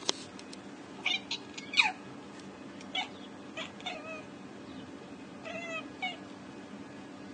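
Tabby cat scolding a bird it is watching: a string of short, irregular chirps and clipped meows, the loudest about two seconds in, sliding sharply down in pitch. A steady low hum runs beneath.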